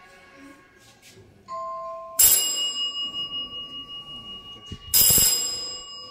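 Electric AC gong bell ringing as its push button is pressed to test the newly wired bell circuit: two loud metallic strikes about three seconds apart, each ringing on and dying away slowly.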